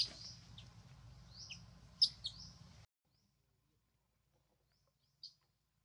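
Small birds chirping in short, high calls, several in the first three seconds over a low background hiss. The sound cuts off suddenly about three seconds in, leaving near silence with one more faint chirp near the end.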